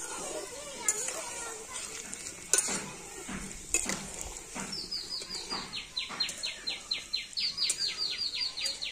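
Mango fritters deep-frying in hot oil in a kadai, sizzling steadily, while a metal spatula stirs and turns them and knocks now and then against the pan. From about halfway a rapid run of high chirps, each falling in pitch, comes about five a second.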